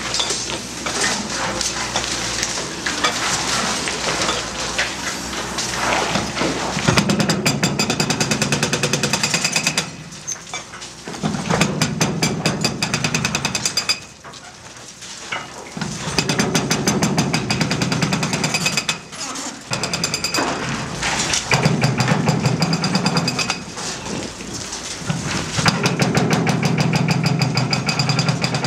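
Excavator-mounted hydraulic breaker hammering the reinforced concrete of a bridge deck, a rapid even pounding. It comes in bursts of a few seconds with short pauses between them, and starts about seven seconds in.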